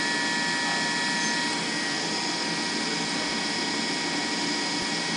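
Steady whirring hiss of a stationary train's onboard machinery, with a few thin, high, steady whining tones running through it.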